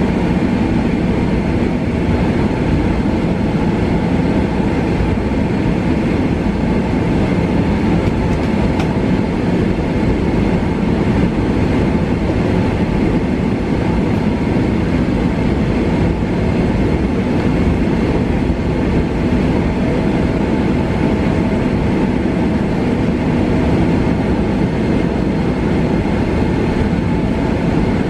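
Steady jet engine noise and rumble heard inside the cabin of a Boeing 777 taxiing at low power.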